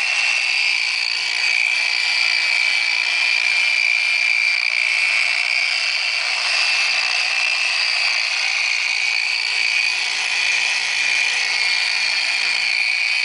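Porter-Cable variable-speed polisher running steadily at a low speed setting, spreading polish over a headlight lens with a medium-cut pad. It makes a steady high whine that cuts off abruptly at the end.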